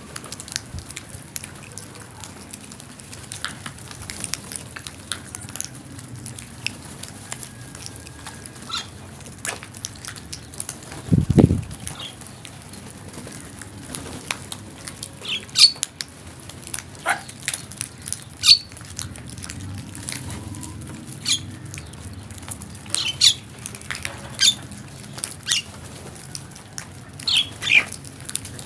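A flock of crows calling: short, harsh caws come irregularly from several birds over a steady low background rumble. A single loud low thud sounds about eleven seconds in.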